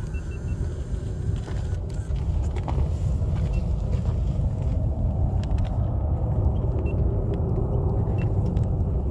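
Twin-engine jet airliner's engines rumbling steadily and low as it climbs away after take-off.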